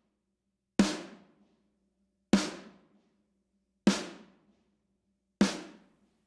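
Four isolated snare drum hits, evenly spaced about a second and a half apart, each a sharp crack that dies away quickly. This is the sampled replacement snare from XLN Audio's Addictive Trigger played soloed, with no other instruments.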